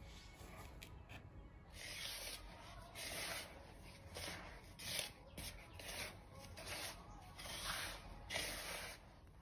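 A hand rubbing and stirring a dry mix of semolina, rice flour and plain flour in a plastic bowl: a series of gritty swishing strokes, about one to two a second, starting about two seconds in.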